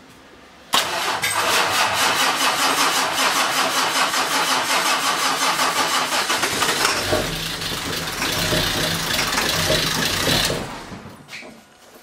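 Ford Powerstroke diesel engine being cranked over by its starter. The cranking begins abruptly and goes steadily for several seconds. Its sound changes about seven seconds in, and it cuts off after about ten seconds.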